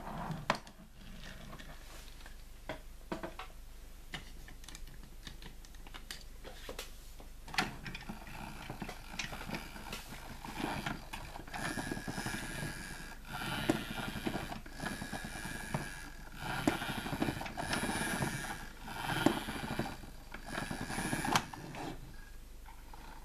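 Plastic toys being handled: scattered clicks and knocks, then from about eight seconds in a run of short rattling, scraping bursts, each about a second long.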